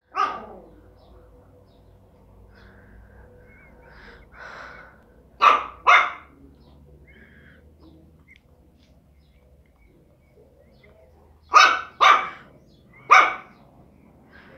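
Small pinscher dog barking in short, sharp barks: one at the start, a quick pair about five and a half seconds in, then three more near the end.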